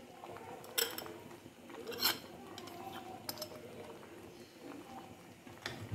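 Light clinks of a metal spoon and glass bowl against a pan while egg is stirred into soup. There are two sharper clinks, about one and two seconds in, and a few fainter taps after them.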